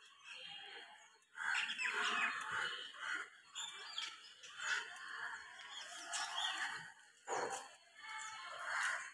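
Birds chirping and calling in uneven bursts.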